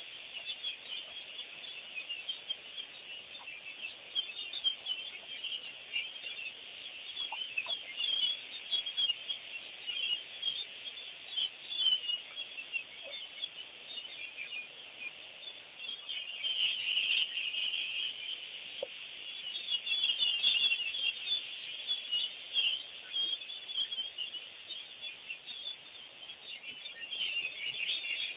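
A dense chorus of small birds chirping at a waterhole, many overlapping high chirps, growing busier about halfway through and again near the end.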